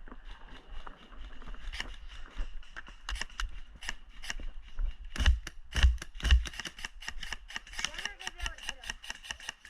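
Airsoft guns firing: scattered sharp snapping shots, with three louder shots in the middle and a quicker string of several shots a second near the end.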